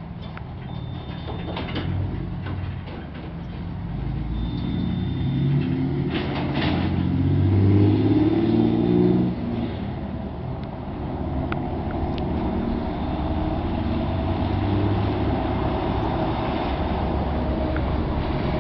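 Motor vehicle engine drone that grows louder to its peak about eight seconds in, falls back just after, then runs on steadily.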